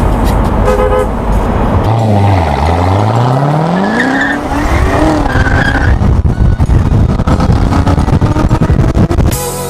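Corvette V8 engine under hard acceleration, heard from inside the car. The revs drop and climb again about two seconds in and again around five seconds, then rise steadily.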